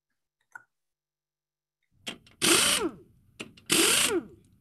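Two short bursts of a power-tool whir about a second apart, each rising and then falling in pitch. A faint click comes just before them.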